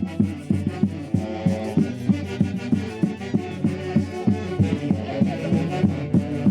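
Andean Santiago music from Huancayo: a band plays a melody over a steady, driving drumbeat of several strikes a second.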